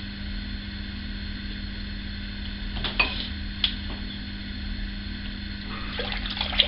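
Water running steadily into a bathroom sink, with a few sharp splashes or knocks about three seconds in and a quick cluster of them near the end.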